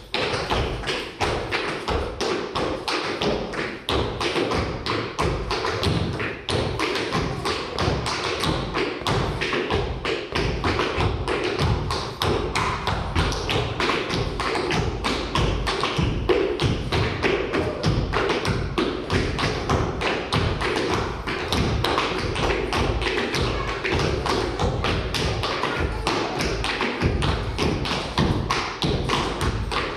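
Two clog dancers' shoes beating out rapid, continuous taps and stamps on a wooden floor in Appalachian clogging steps, with music playing underneath.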